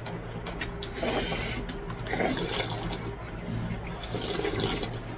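A person slurping cold buckwheat noodles (naengmyeon) in broth and chewing: three wet slurps, about a second in, near the middle and near the end, over a steady low hum.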